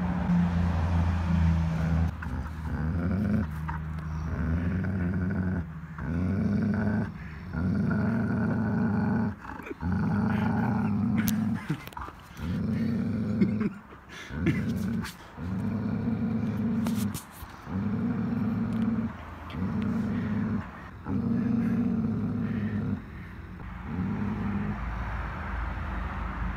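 Dog growling over a tug-of-war toy: possessive play growling, low and continuous, in long rumbles of a second or two broken by short breaths.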